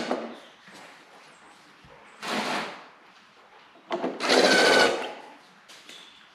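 Cordless drill driving screws in short runs: a brief burst about two seconds in, then a longer one of about a second near four seconds in, the motor whining at a steady pitch.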